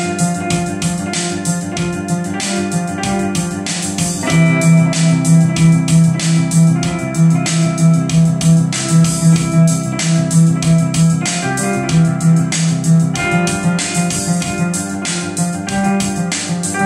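Synth-pop played on an electronic keyboard: sustained organ-like chords over a steady beat, with a pulsing low bass line from about four seconds in until about thirteen seconds.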